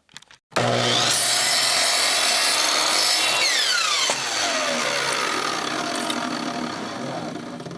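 Electric power saw started up with a rising whine and cutting through a wooden board, then winding down with a falling whine from about three and a half seconds in while the noise of the cut carries on.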